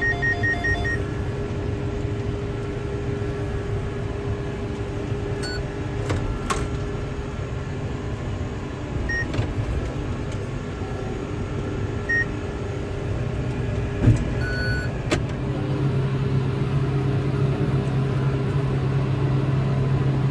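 John Deere tractor pulling a McHale V6750 round baler, running steadily as heard inside the tractor cab. Short electronic beeps come from the baler's control box: a quick run of them at the start, then single ones every few seconds. There is a knock about fourteen seconds in.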